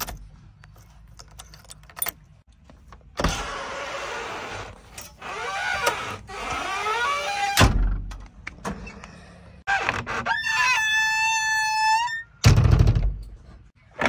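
Cab door of a JCB 3DX backhoe loader being worked: latch clicks, several seconds of rattling and scraping, then a knock. Later a steady high tone lasts about two seconds, followed by a heavy thud as the door shuts near the end.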